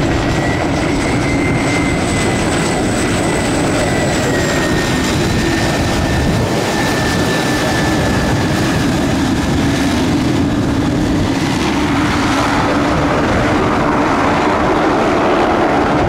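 Beechcraft 1900D turboprop taxiing past, its two Pratt & Whitney PT6A turbines and propellers running at taxi power. A steady propeller drone carries a high turbine whine that drops slightly in pitch as the aircraft goes by.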